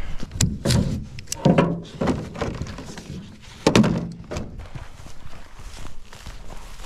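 Ratchet tie-down strap being released from a canoe: a series of sharp metal clicks and clanks from the ratchet buckle, with knocks against the hull, the loudest about a second and a half in and again near four seconds.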